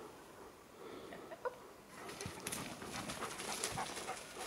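Alaskan malamute walking through dry fallen leaves, its paws rustling and crackling the leaf litter, getting louder about two seconds in as it comes closer.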